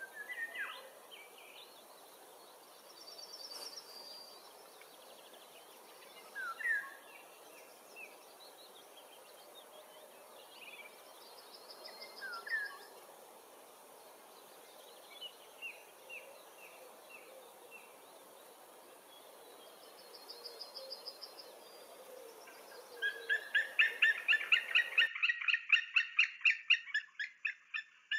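Small birds chirping and trilling here and there over a quiet outdoor background. Near the end a much louder, rapid series of yelping calls sets in, about five a second, from white-tailed eagles squabbling.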